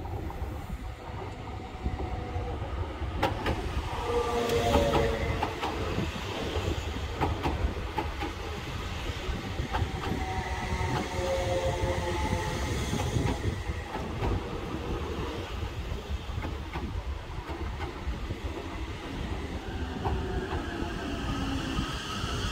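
Two coupled Appenzeller Bahnen Stadler 'Walzer' electric multiple units running slowly past at close range: a low rolling rumble, with the wheels clicking over points and rail joints and whining tones that slowly shift in pitch.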